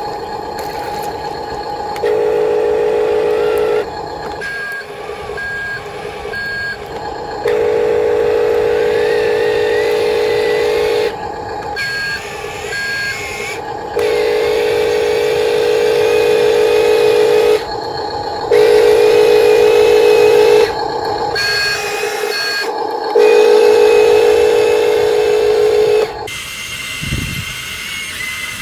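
Huina RC dump truck working through mud: its electric drive whines, rising and falling with the throttle, while the toy's sound module plays a loud electronic buzzing warning tone in bursts of two to four seconds, with short high beeps in twos and threes between them.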